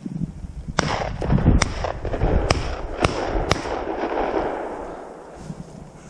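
Footsteps pushing through tall dry grass and brush: loud rustling and swishing against the microphone, with five sharp cracks in the first few seconds, dying down near the end.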